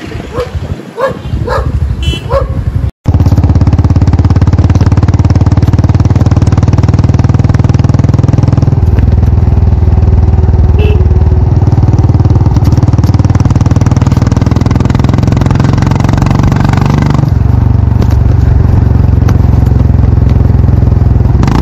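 Royal Enfield Classic 350's single-cylinder engine running loud and steady under way. It starts suddenly about three seconds in, and its note drops, rises and drops again as the speed changes.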